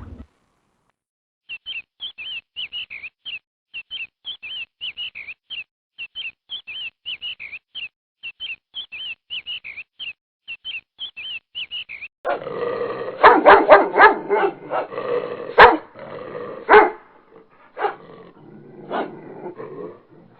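A dog barking loudly in quick, irregular volleys, beginning about twelve seconds in. Before it comes a long run of rapid, high chirps in quick clusters, several a second.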